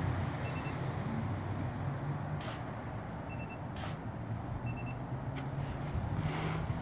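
Steady low rumble of street traffic, with a few short high beeps and sharp clicks: a camera's focus-confirm beeps and shutter releases, a beep coming just before a click twice.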